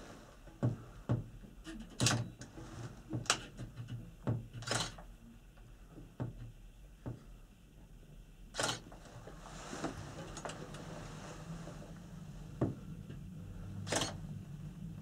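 Panoramic Mont Blanc gondola cabin rattling in motion: irregular sharp clicks and knocks, about ten of them, over a low steady hum.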